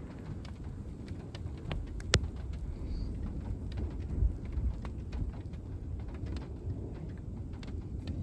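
Raindrops striking the car's roof and windows in scattered ticks, one sharper hit about two seconds in, heard from inside the closed car over a steady low rumble.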